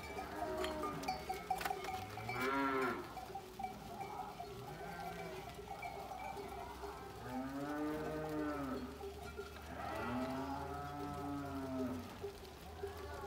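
A passing flock of sheep bleating, with a few drawn-out calls that rise and then fall in pitch: a short one about two and a half seconds in and two longer ones around eight and eleven seconds in.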